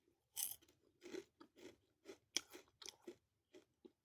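A crunchy bite into a chocolate-covered insect about half a second in, the loudest sound, followed by close-up crunchy chewing at about two to three chews a second.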